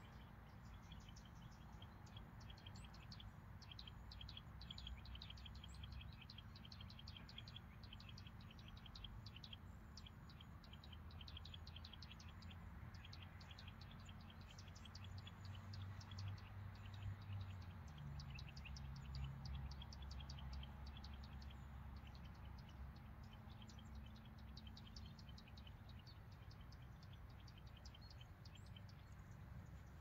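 Faint outdoor ambience: a long run of rapid, high, dry chirps or ticks that goes on with short breaks. A low rumble and hum sits underneath and grows louder for a while in the middle.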